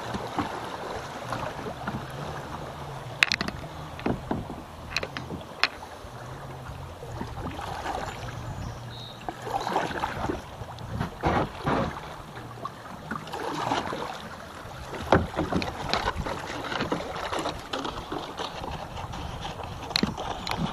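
Kayak paddle strokes splashing into shallow, rippling river water, a stroke every second or two over a steady rush of moving water, with a few sharp knocks along the way.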